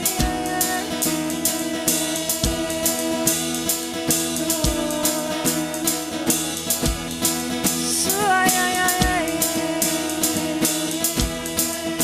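Worship-band music without lyrics: a drum kit with a bass-drum hit about every two seconds and busy cymbals over steady held chords, with a short sliding melodic line about eight seconds in.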